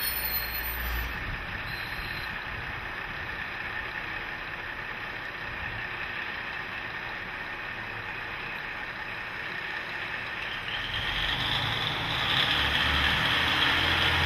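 KiHa 40 diesel railcar engine idling at a standstill: a steady mechanical running sound that grows louder, with a low hum coming in, about twelve seconds in.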